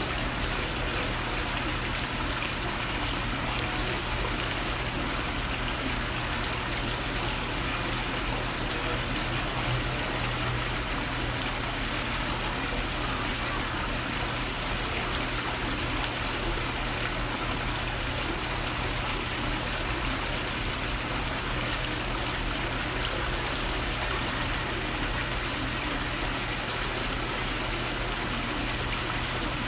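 Steady, even rushing noise with a constant low hum underneath, with no distinct calls or knocks standing out.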